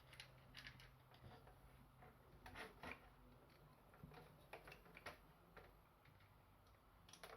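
Faint, irregular small clicks and ticks of screws being driven to mount an AIO cooler radiator in a PC case, about a dozen over several seconds.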